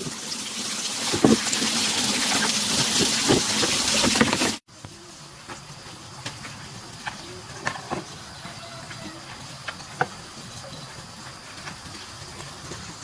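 A loud, steady hissing rush for about four and a half seconds that cuts off abruptly, followed by a much quieter background with scattered small clicks.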